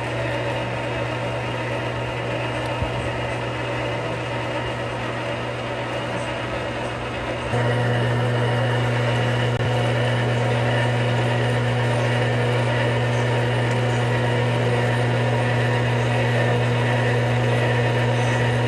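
Metal lathe running steadily while a long-extension boring bar takes a slow, fine cut inside a welded steel pipe, giving a steady hum with a cutting noise over it. About seven and a half seconds in, the sound steps up louder and stays there.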